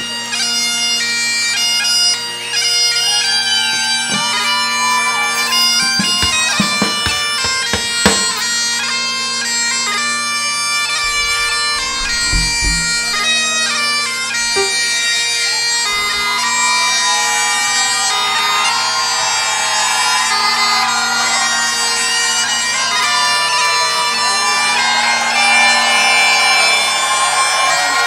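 Bagpipes playing a melody over steady drones.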